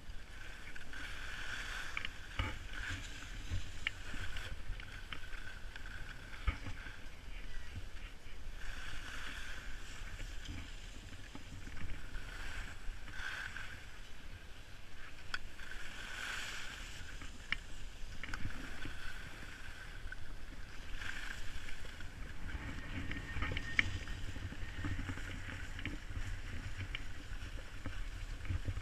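Skis hissing and scraping over packed snow, swelling and fading every few seconds as the turns go, with wind buffeting the microphone underneath and a few light clicks.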